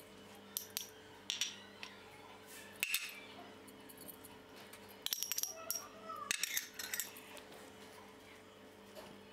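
Glass bowls and a metal spoon clinking and tapping as sauce and spices are tipped into a glass bowl of raw chicken: scattered light clinks, some ringing briefly, busiest about five to seven seconds in.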